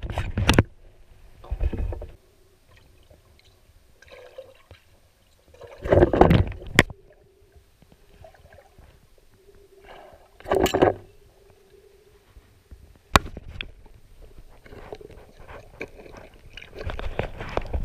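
Water gurgling and sloshing around a camera held underwater by a snorkeler with a pole spear, broken by several loud bursts a few seconds apart.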